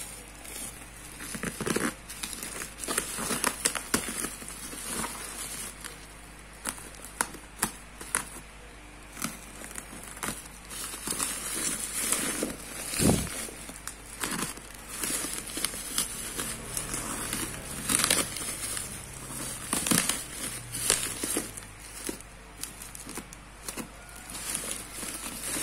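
Black plastic bubble wrap and packing tape crinkling and crackling in irregular bursts as a parcel is pulled open by hand, with one louder thump about halfway through.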